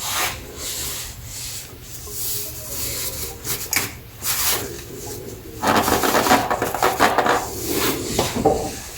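Irregular rubbing and scraping with scattered short knocks, busiest and loudest a little past the middle.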